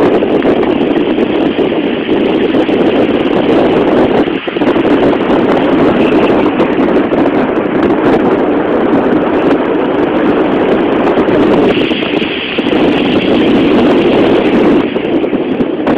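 Strong wind buffeting the microphone, a loud continuous roar that eases briefly twice.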